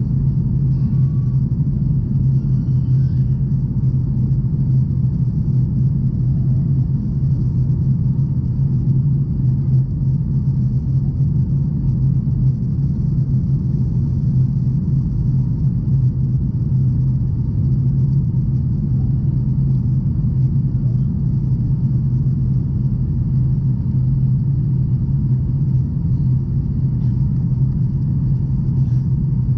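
Steady, unchanging rumble and drone of a Boeing 737's engines and airflow, heard from inside the passenger cabin.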